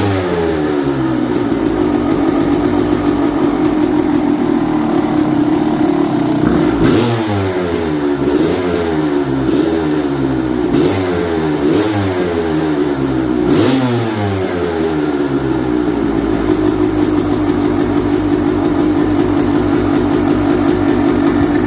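Freshly rebuilt 1996 Suzuki RMX250's two-stroke single-cylinder engine running and blipped repeatedly with the throttle, about half a dozen times in quick succession, each rev falling back. From about 16 seconds in it settles to a steady idle.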